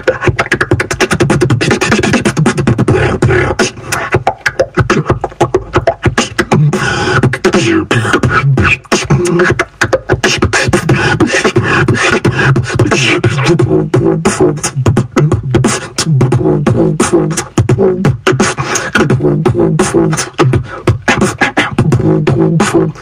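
Solo beatbox performance: a fast, unbroken stream of vocal kicks, snares and clicks with a hummed bass tone running underneath.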